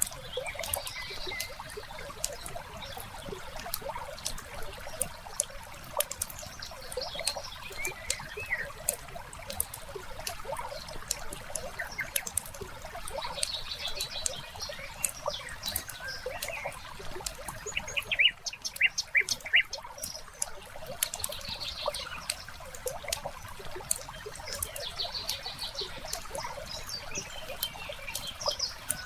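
Mixed fireside nature ambience: a log fire crackling with frequent small pops over a soft trickle of water, with bird chirps coming and going and a short run of louder calls about two-thirds of the way through.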